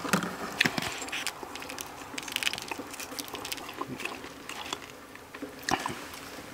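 Small scattered clicks and short rustles of eating: seasoning shaken from a glass jar over a plate of fried trout, then wooden chopsticks tapping and picking at the fish on a paper plate.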